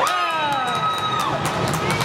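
Spectators at an ice hockey game cheering and yelling, one high voice holding a long shout that falls away after about a second, with sharp clacks throughout.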